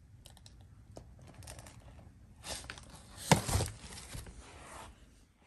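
Large cardboard shipping box being opened and handled: irregular rustling and scraping of cardboard, busiest a few seconds in, with one sharp knock about three seconds in.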